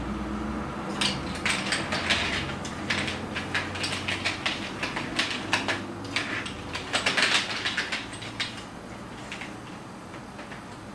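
Hard plastic toy pieces clicking and rattling as they are handled, busiest in the first eight seconds, then thinning out.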